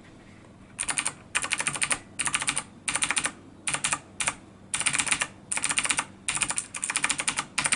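Razer BlackWidow 2014 mechanical keyboard typed on in short quick bursts, the keys bottoming out with a rapid clatter of clicks. The typing starts about a second in, after a brief quiet.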